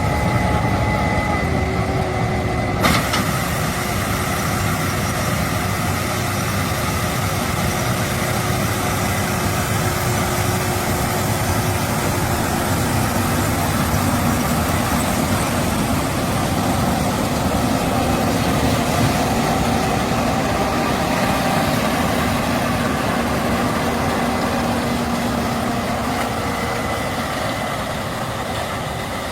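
Case IH 8260 Axial-Flow combine's diesel engine and threshing machinery running steadily while harvesting corn, a dense mechanical drone with a few steady tones in it. The sound turns suddenly brighter and hissier about three seconds in.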